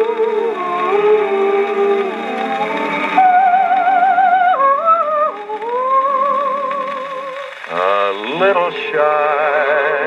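A 1948 78 rpm shellac record played on an HMV 102 wind-up gramophone: a male solo singer with vibrato over a wordless backing vocal group, with no instruments. Nothing sounds below the lower voices. A little after three-quarters of the way through, the voices swoop upward several times.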